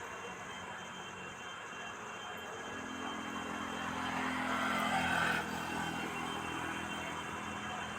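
A motor vehicle's engine running and passing, with a low hum that grows louder from about three seconds in, peaks a little past the middle and then drops away, over steady background noise.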